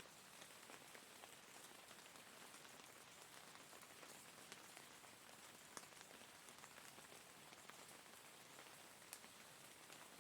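Faint, steady rainfall: an even hiss of rain with many single drops striking as sharp ticks scattered throughout.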